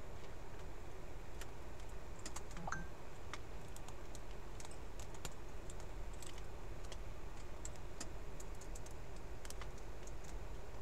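Faint, scattered small clicks and taps of fingers pressing a small bracket back over a laptop's Wi-Fi card and its antenna connectors, over a steady low hum and hiss.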